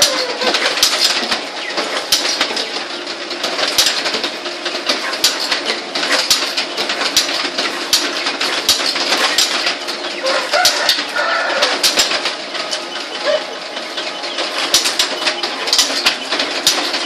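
Bamboo-splitting machine for satay skewers running, with a steady motor hum under a dense, irregular clatter of knocks and cracks.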